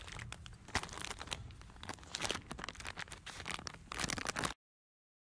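A silver plastic bag crinkling and rustling right against the microphone, with rapid irregular crackles over low handling rumble. The sound cuts off suddenly near the end.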